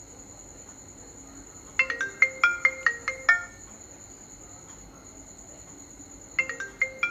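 Phone ringtone: a quick melody of about eight short, bright notes, played twice with a pause between, over a steady high-pitched electronic whine.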